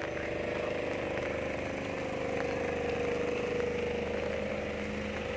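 A vehicle engine running steadily with an even hum, over a faint hiss of rain on wet pavement.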